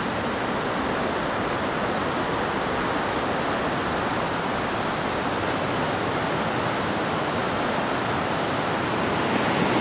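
Henry's Fork of the Snake River rushing through Sheep Falls in a steady wash of white water, running high with spring runoff.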